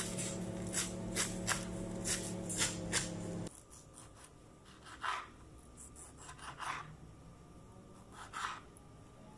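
Kitchen knife chopping lettuce on a cutting board in quick, sharp taps over a steady background hum. About three and a half seconds in, the hum cuts off and a few softer, slower knife cuts through tomatoes onto the board follow.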